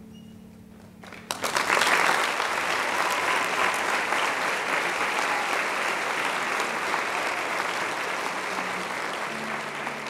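A held low note of the ensemble dies away, and a little over a second in the audience breaks into applause, which goes on steadily.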